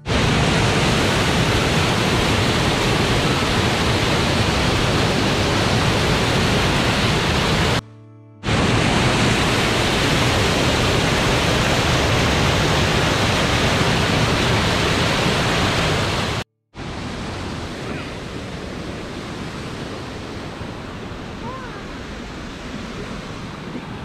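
Waterfall cascading over rock ledges: loud, steady rushing of white water close by. It cuts out briefly twice, and after the second break the rushing is quieter and more distant.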